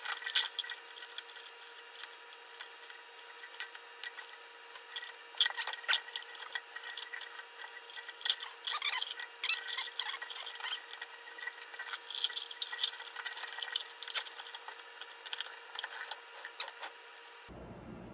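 Hands fitting a red drive belt onto a chicken plucker's electric motor pulley: irregular light clicks, taps and rubbing of the belt against the pulley and the metal frame, over a faint steady tone.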